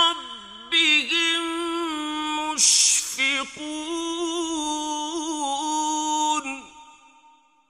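A man's solo voice reciting the Qur'an in the melodic mujawwad style, drawing out long held notes with wavering, ornamented pitch. The voice stops about six and a half seconds in and its echo fades out.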